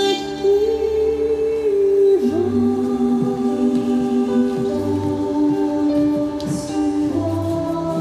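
Waltz music with a choir of voices singing long held notes over a soft bass that returns about every two and a half seconds.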